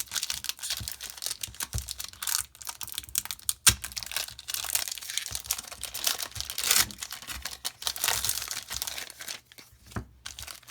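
A Magic: The Gathering booster pack's crinkly foil wrapper being torn open and crumpled: dense crackling with a sharp snap about a third of the way in, easing off near the end.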